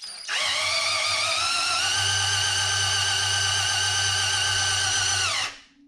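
Cordless drill spinning the priming rod that turns the oil pump of a Mopar 440 big-block: the motor whine rises as it spins up, holds steady for about four seconds, then winds down and stops near the end. The oil pump is being primed and is building oil pressure.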